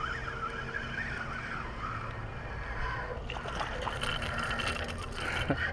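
Spinning fishing reel being cranked as line is retrieved. About halfway in, a busier rustling and splashing noise sets in, with a few sharp clicks near the end.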